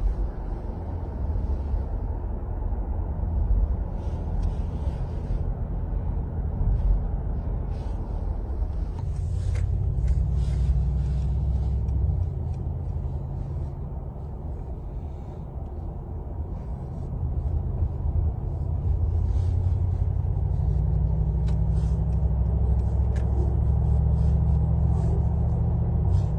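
Mercedes-AMG G63's twin-turbo V8 and road noise while driving at speed on the motorway: a deep, steady drone that swells louder about ten seconds in, eases, then builds again from about seventeen seconds.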